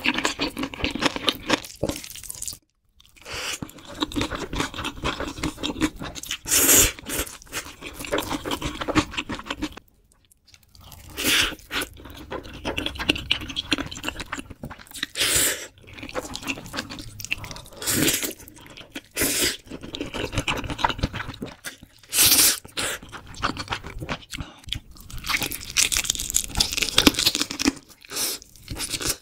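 Close-miked eating sounds: crunchy bites and chewing of sauced fried chicken, with spicy ramen noodles being eaten, broken by two short silences.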